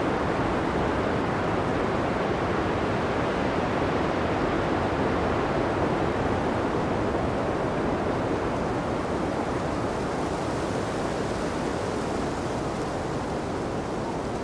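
Strong blizzard wind blowing steadily, a dense rushing noise with no gusts or breaks, turning slightly hissier and a little quieter in the later seconds.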